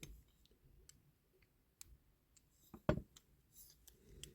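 Scattered light clicks and taps of a small screwdriver and diecast metal parts as a tight screw on a diecast toy model is loosened, with one louder knock about three seconds in.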